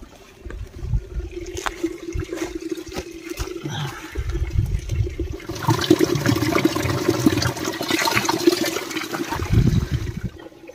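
Stream water running, swelling about halfway through into a loud rushing gush that stops just before the end, with low bumps and knocks before it.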